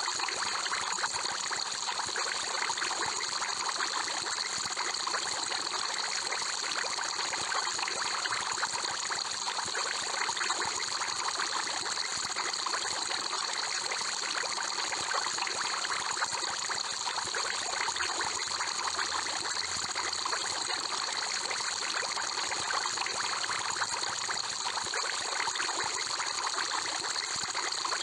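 Aquarium water trickling and bubbling steadily, with a fine crackle of small bubbles.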